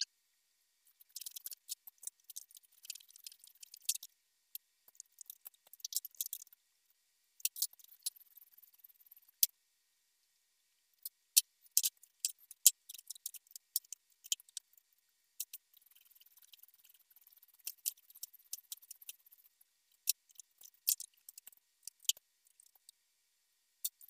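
Hand ratchet wrench clicking in quick runs as bolts are backed out, with a few sharper metal clinks of the tool in between.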